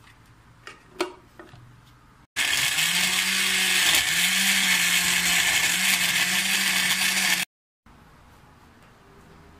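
Electric countertop blender running on a jug of mango chunks and milk, a loud steady motor whir with a low hum that dips briefly a couple of times as the load shifts, for about five seconds before stopping abruptly. A few light clicks come before it starts, about two seconds in.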